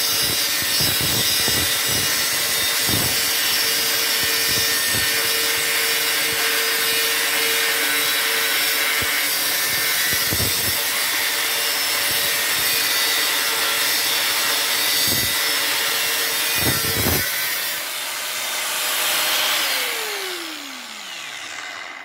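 Dekton DK-AG850 850 W angle grinder with a thin cut-off disc running at speed and cutting through thin metal box-section, a steady high motor whine over the grinding of the disc. Near the end the disc leaves the metal and the motor winds down, its whine falling steadily in pitch.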